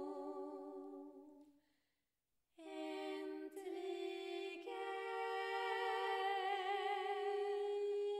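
Wordless female singing, unaccompanied, in long held notes with vibrato. It fades out about a second and a half in, breaks off into a short silence, and comes back about two and a half seconds in, moving to a new held note near the middle.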